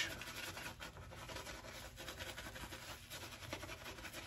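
A new G5C synthetic-knot shaving brush face-lathering: the bristles rub and scrub shaving soap lather over stubble with a steady scratchy, bristly rustle.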